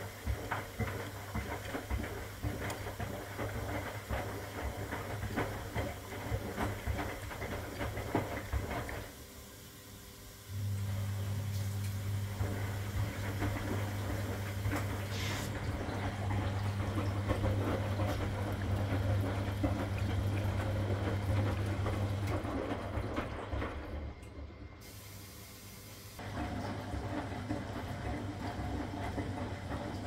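1962 Constructa K4 washing machine tumbling a wet load: water sloshing in the drum over the motor's low, steady hum. The sound drops away briefly about nine seconds in and again around twenty-four seconds, as the drum pauses between turns, then starts up again.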